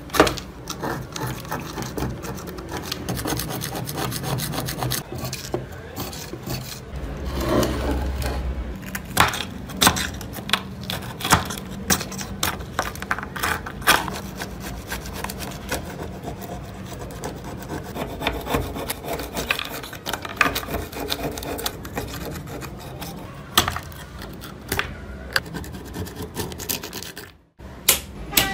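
Dried mud and rust crust being scraped and chipped off an old hammer head with a pointed metal tool: an irregular run of scratchy scrapes and small sharp knocks as clods break away onto a wooden bench.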